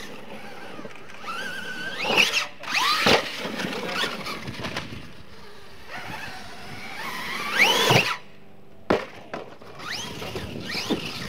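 RC monster truck motor whining as the throttle is punched and released, rising and falling in pitch several times, with tyres scrabbling on dirt and a couple of sharp knocks.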